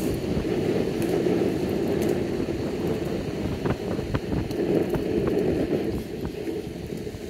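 Steady rough rumble of wheels rolling fast over asphalt, mixed with wind on the microphone and a few small clicks and rattles; it eases a little near the end.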